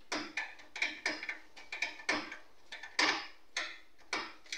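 Screwdriver working the mounting screws of a desktop CPU fan-and-heatsink cooler, metal on metal: an irregular run of short clicks and scrapes, the loudest about three seconds in.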